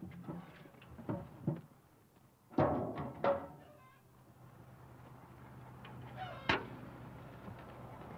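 Knocks and thunks of a metal fuel can handled against a rusty steel burn barrel, loudest as a pair of knocks about two and a half to three seconds in. Then, about six and a half seconds in, a single sharp strike: a match lit to set the poured fuel alight.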